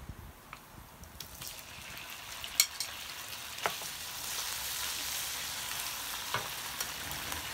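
Sliced marinated beef and chopped garlic sizzling in hot oil in a wok, the hiss building about two seconds in and then holding steady as the beef is stirred with a wooden spatula. A few sharp knocks against the pan, the loudest about two and a half seconds in.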